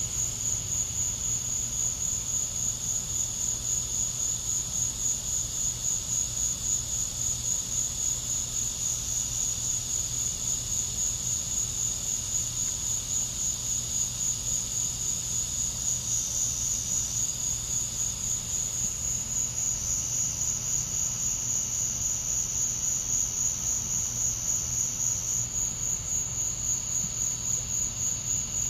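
Crickets chirping on a summer evening, a continuous high-pitched trill that pulses at a quick, even rate, with a faint low hum underneath.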